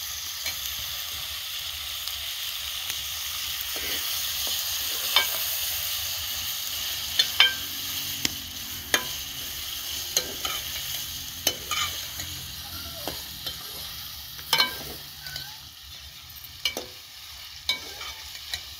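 Sliced potatoes and onions frying in oil in a metal pot, sizzling steadily, while a metal spoon stirs them, scraping and clinking against the pot about a dozen times. The sizzle eases somewhat near the end.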